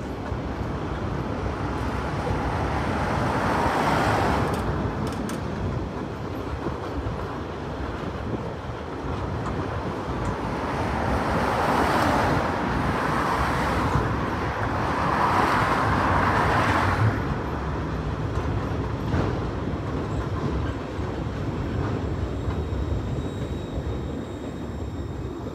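Freight train of empty flat wagons rolling past on the rails below: a continuous rumble of wheels on track that swells louder three times, around 4 s, 12 s and 16 s in, with a few sharp clicks.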